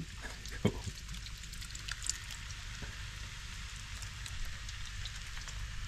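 Roux and vegetables sizzling steadily in a pot, with a few faint knocks, as a can of Rotel diced tomatoes is poured in.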